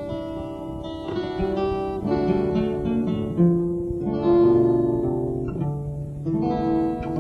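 Acoustic guitar instrumental: plucked notes and chords struck about once a second and left to ring.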